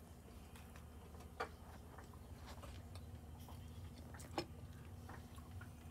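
Quiet room tone with a steady low hum and a few faint, irregular clicks, two of them a little clearer, about one and a half seconds in and again past four seconds.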